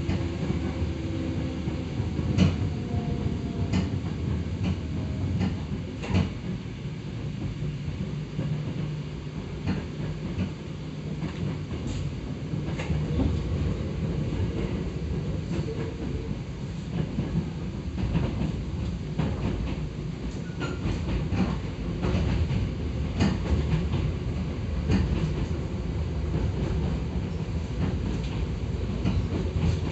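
Hakone Tozan Railway 2000-series resistance-control electric train heard from inside the car as it runs downhill on the mountain line: a steady wheel and track rumble with irregular sharp clicks from rail joints.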